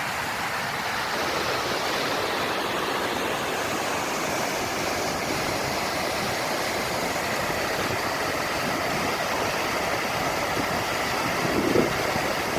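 Steady rush of a mountain valley stream's flowing water.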